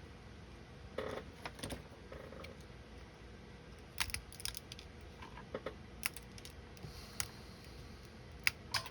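Scattered light clicks and taps of small model parts and hobby tools being handled on a workbench, irregular and spaced out, a few every second or two.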